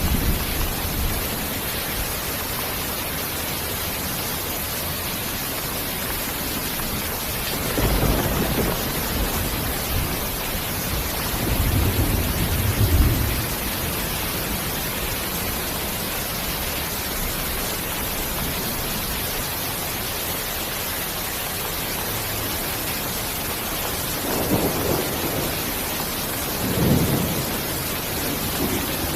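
Steady heavy rain hissing, with low thunder rumbles rolling through several times, the strongest about thirteen seconds in.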